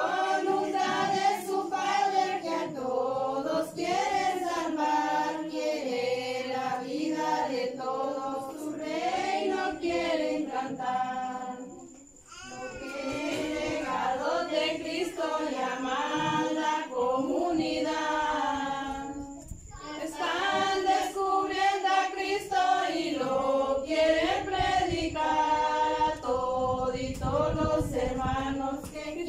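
A group of people singing together, with women's and children's voices to the fore. The singing breaks off briefly about twelve seconds in and again near twenty seconds.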